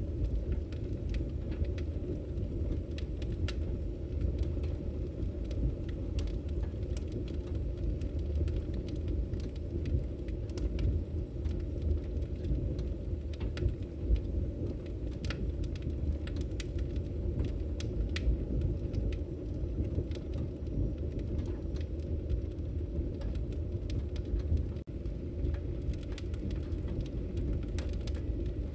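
Wood fire burning in a fireplace: a steady low rumble of flames with frequent small crackles and pops. The sound drops out for an instant about 25 seconds in.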